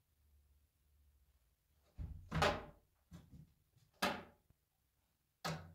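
A dog's paws knocking and thumping on a plastic tub as it steps and shifts its feet in it: several separate knocks after a quiet start, the loudest about two and a half seconds in.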